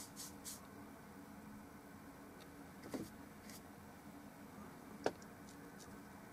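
Quiet handling of oil-painting tools off the panel: a couple of soft brush scratches in the first half second, then two small sharp clicks about three and five seconds in, the second the louder, over a low steady hum.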